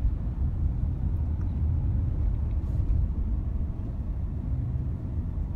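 Car driving slowly, heard from inside the cabin: a steady low rumble of engine and road noise.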